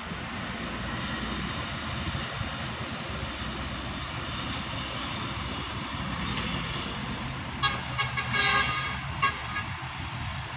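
Heavy diesel machinery running steadily, with a vehicle horn sounding in a few short toots and one slightly longer blast about three-quarters of the way through.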